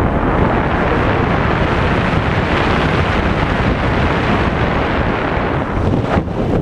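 Steady, loud wind rushing over a wrist-mounted camera's microphone as a tandem skydiving pair descends under an open parachute canopy.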